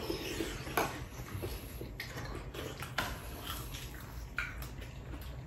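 Spoons, chopsticks and a ladle clinking against bowls and a soup pot during a meal: a few sharp clinks about a second apart, with small ticks and scrapes between.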